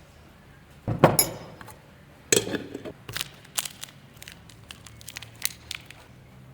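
Hands handling objects on a table: a knock about a second in, a second knock with a brief rattle a moment later, then a run of light clicks and taps, some with a glassy clink.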